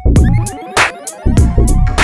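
Loud electronic dance music with a heavy, thumping bass drum beat, sharp percussion hits and a sustained synth melody that steps between notes.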